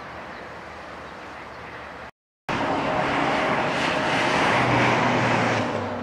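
Steady rumble of a passing electric commuter train, which cuts off about two seconds in. Then two Class 36 diesel-electric shunting locomotives approach with a short ballast train: a low engine drone over wheel and rail noise, loudest through the middle and easing near the end.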